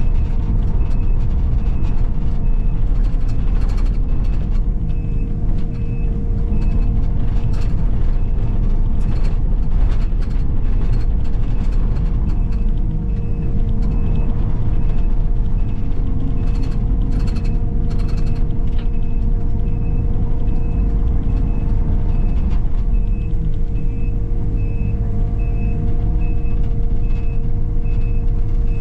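A heavy machine's engine running steadily while its reverse warning alarm beeps over and over, pausing for a few seconds past the middle. Scattered clatter of brush and debris is heard now and then.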